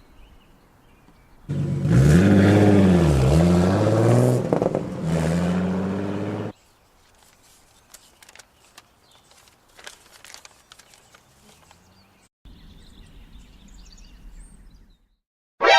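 Car engine revving loud for about five seconds, its pitch dipping and then climbing again, then dropping away to faint ticks. A quieter, low engine sound runs near the end.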